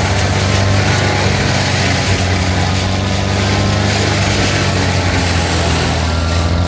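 A large engine of the tree crew's machinery running steadily at constant speed, a low drone with dense noise over it.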